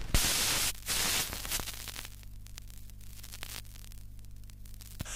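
Two loud bursts of static noise in the first second and a half, then a steady low electrical hum with faint crackles and clicks.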